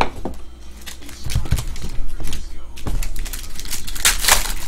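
Foil trading-card packs crinkling and clicking as a stack is handled, then a pack torn open about four seconds in with a loud, short rip of the foil wrapper.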